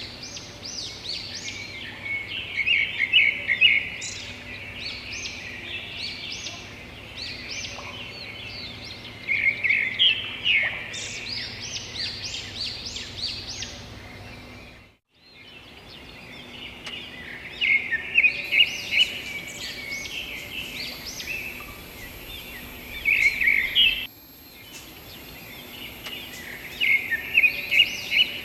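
Songbirds calling in bursts of rapid high chirping every few seconds over a steady background of forest ambience. The sound drops out briefly about halfway through.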